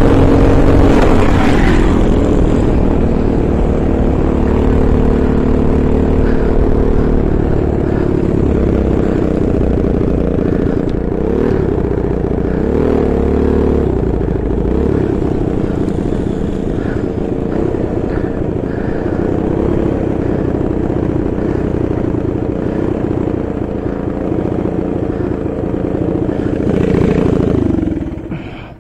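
Racing go-kart engine heard from on board, running at part throttle with its pitch wavering up and down a few times, then briefly rising before dying away near the end as the engine shuts off.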